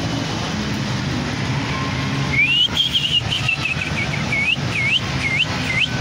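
Steady low rumble of a vehicle engine running. About two seconds in, a series of high whistles starts: a rising note, then repeated swooping dips and rises about twice a second, louder than the rumble.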